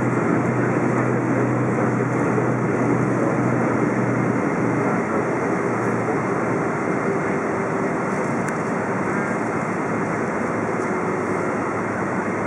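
Boeing 777-200 cabin noise while taxiing: a steady rush from the GE90 engines at low taxi thrust, heard through the fuselage, with a low hum that fades out about four seconds in.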